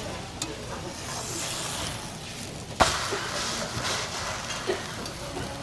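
Buckwheat pancake batter frying on an oiled griddle: a steady crackling sizzle, with one sharp knock a little before halfway.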